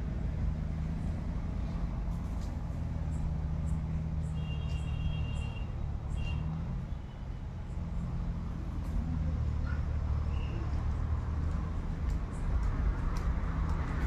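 Steady low rumble of a running vehicle engine, its pitch shifting slightly now and then, with a few short high tones about four to six seconds in.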